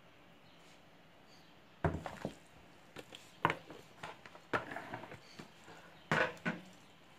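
Hand patting and pressing crumbly grated-cassava batter flat in a metal baking pan: an irregular run of soft thumps and knocks with brushing noise between them, starting about two seconds in.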